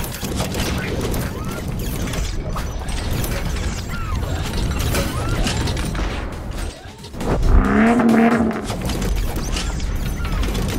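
Sound effects for an animated car-transformation intro: dense mechanical clicking, ratcheting and clanking. About seven and a half seconds in comes a heavy hit, the loudest moment, with a wavering pitched tone over it for about a second, and then the clatter goes on.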